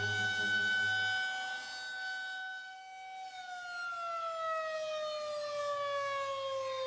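Air-raid siren wailing on one steady pitch, then slowly winding down in pitch from about three seconds in.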